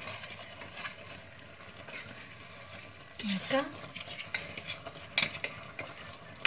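Wooden spoon stirring pieces of meat, onion and spices frying in oil in an aluminium pot: scraping and scattered knocks of the spoon against the pot over a faint sizzle.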